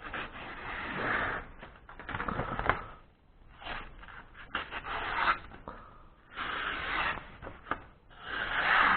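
A Swiss Army knife blade making repeated scraping swishes, about five strokes, each up to a couple of seconds long, with short pauses between them.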